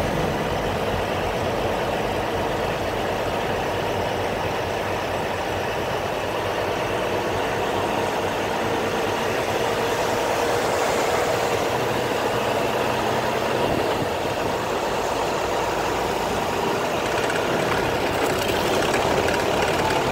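Semi truck's diesel engine running steadily, with road noise, heard from inside the cab while the truck rolls slowly in traffic.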